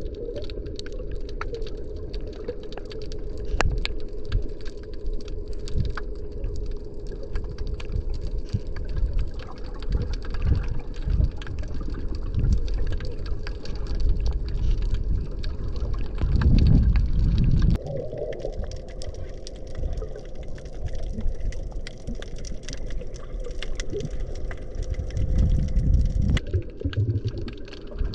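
Underwater sound picked up by a camera in the sea: muffled water movement with scattered crackling clicks over a steady low hum, and louder low rumbles about sixteen seconds in and again near the end.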